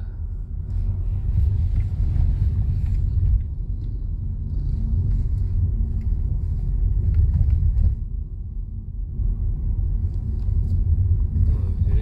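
Car engine and tyre rumble heard from inside the cabin while driving along a narrow road. It is steady and deep, easing briefly about eight seconds in.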